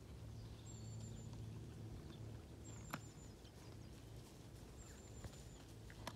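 Faint open-field ambience: a horse's hooves falling softly on turf under a low steady hum, with a few thin high whistles and an occasional faint click.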